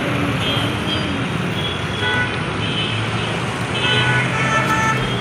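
City street traffic: a motor scooter passing close and cars driving by, a steady mix of engine and tyre noise, with short horn toots from other vehicles, more of them near the end.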